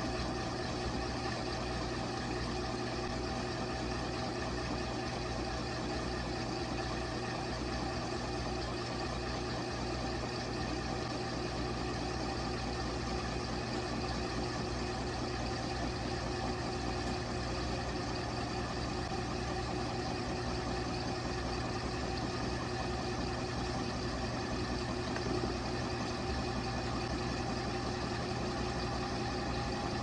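LG Mega Capacity top-load washing machine running on its bulky/bedding cycle, the motor humming steadily as the drum turns a bean bag chair.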